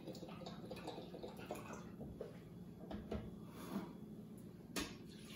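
Beef broth poured from a carton into a plastic measuring cup: a faint trickle of liquid. There are a couple of light knocks, about three seconds in and near the end.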